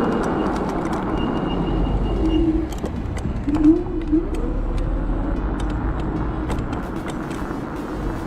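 Steady wind and road noise while riding a Kaabo Wolf Warrior electric scooter through city traffic, with a brief wavering tone about three and a half seconds in.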